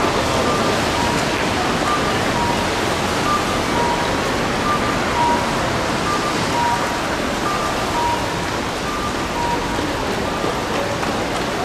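Steady rushing outdoor noise, with a faint two-tone electronic signal over it: short high and low beeps alternating, about one every 0.7 seconds.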